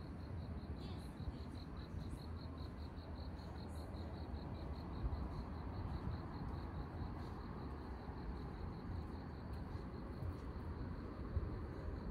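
An insect chirping in a steady pulsed rhythm, about five high-pitched pulses a second, fading out about two-thirds of the way through. A low, steady rumble of city noise runs underneath.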